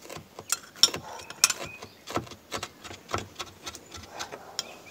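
Kitchen knife chopping wood sorrel on a cutting board: a quick, uneven run of blade knocks, about three a second, two of them louder about a second and a second and a half in.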